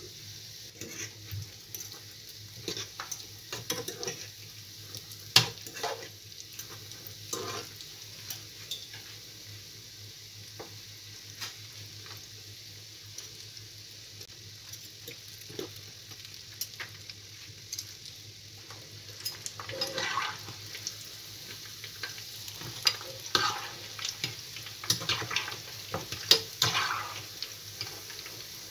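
Rosquillas (ring doughnuts) sizzling steadily as they deep-fry in hot oil in a frying pan, with scattered clicks and taps of a metal fork against the pan as they are turned, thickest in the last third.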